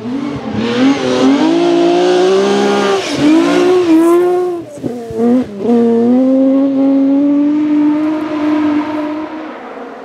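Rally car engine at full throttle on a gravel stage, rising in pitch and dropping back with each quick gear change. It lifts off briefly about five seconds in, then pulls hard again in one long rise and fades as the car drives away.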